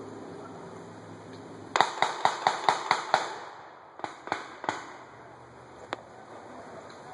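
Blank gunfire from a reenacted firefight: a rapid string of about seven shots, then three more shots and a single shot a second later.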